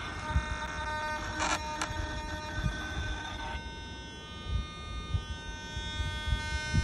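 Powered RC wing servos in a servo frame, giving a steady high-pitched electronic whine with many overtones. The pitch pattern changes about three and a half seconds in.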